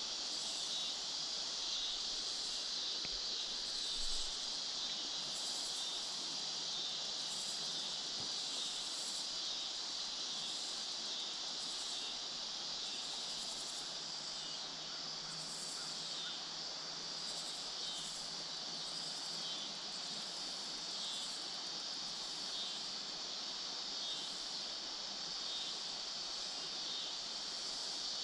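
Evening insect chorus from the riverbank: a steady high-pitched buzzing with a faint pulse roughly once a second.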